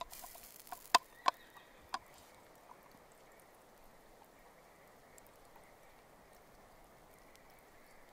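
A brief hiss, then a few sharp pops from the embers under the grill within the first two seconds, the loudest about a second in; after that only a faint outdoor background.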